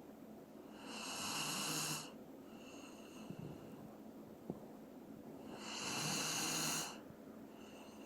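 Doberman snoring in its sleep: two long snores about five seconds apart, each building up and then cutting off sharply, with a fainter whistling breath after each.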